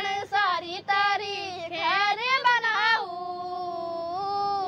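Children singing a Hindi film song unaccompanied, ending the line on a long held note from about three seconds in.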